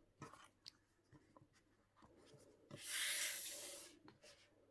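Paper rubbing and sliding as album inserts are handled: light taps and rustles, with one louder scrape lasting about a second near the middle.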